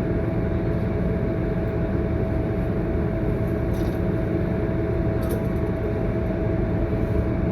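Cabin noise inside a Scania K230UB city bus: a steady low drone from the bus's engine and body, with a thin, steady whine held through it.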